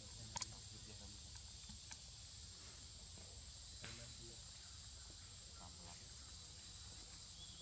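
Faint, steady high-pitched drone of insects, with a few short clicks, the sharpest about half a second in.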